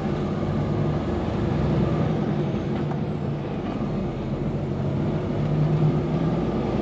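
DAF XF lorry's diesel engine running steadily as the truck drives along, heard from inside the cab along with road noise.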